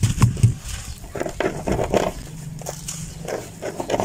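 Hands crushing and crumbling dry, chalky clay lumps into loose soil: irregular crunches and crackles as the chunks break and crumbs fall. A low steady hum comes in about halfway through.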